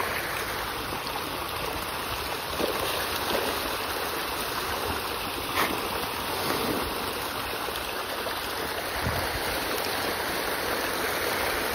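A dense shoal of farmed fish feeding in a frenzy at a pond's surface, splashing and churning the water in a steady rushing splash. One sharper slap stands out a little past halfway.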